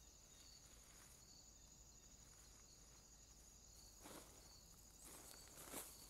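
Faint, steady high trill of night insects such as crickets, with a softer chirp repeating about twice a second. A few short rustles come in the second half.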